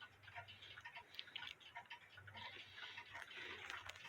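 Seth Thomas No. 2 weight-driven wall clock ticking faintly, running with its door left open while being checked whether it keeps going.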